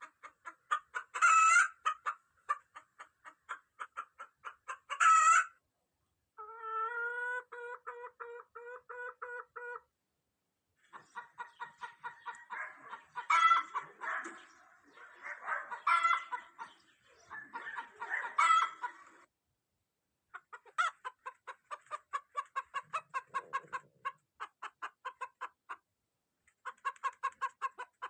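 Hens clucking in rapid, evenly spaced runs, broken several times by loud squawking cackles, with short silent breaks between stretches.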